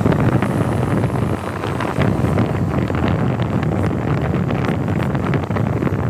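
Loud wind buffeting the microphone of a moving vehicle on a rough dirt road, over a steady low rumble from the ride.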